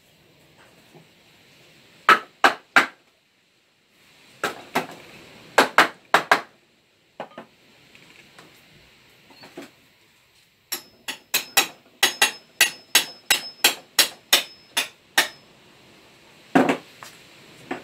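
Hammer blows in a woodworking shop, fitting the leg-vice jaw and its steel threaded rod. First a few separate knocks, then a quick, even run of about a dozen taps, about three a second, with a faint metallic ring, and one heavier blow near the end.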